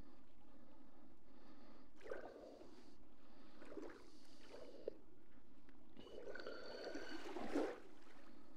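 Sea water sloshing and gurgling in a few irregular surges, the longest and loudest near the end.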